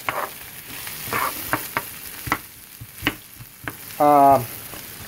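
Diced onions sizzling in oil in a nonstick frying pan, stirred with a wooden spoon that scrapes and taps against the pan several times. A brief voiced sound cuts in about four seconds in.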